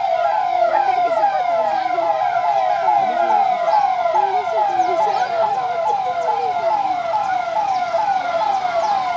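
Police vehicle siren wailing in a fast repeating cycle, each cycle a quick falling tone, about two a second, loud and unbroken.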